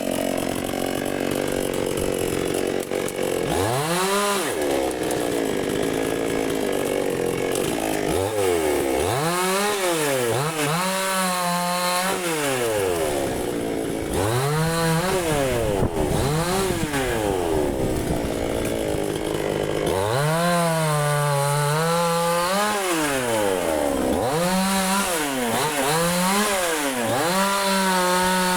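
Dnipro-M 52 two-stroke petrol chainsaw running while cutting walnut wood. The engine speed repeatedly climbs and falls, with stretches of steadier running in between.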